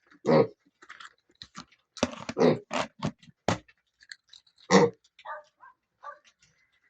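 Piglet grunting in short bursts while it eats: one grunt near the start, a quick run of about five about two seconds in, a loud one near five seconds, then a few fainter, higher squeaky grunts.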